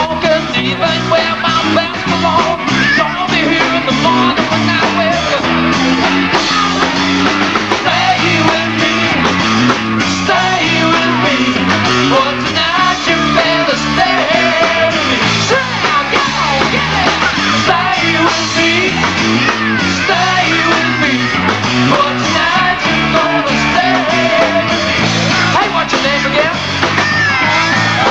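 Rock band playing live: distorted electric guitars and a drum kit, with a male singer singing over them.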